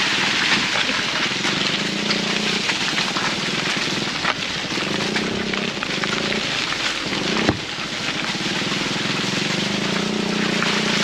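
Subaru Crosstrek driving on a rough dirt track: steady engine drone and tyre and road noise. There is one sharp knock about seven and a half seconds in.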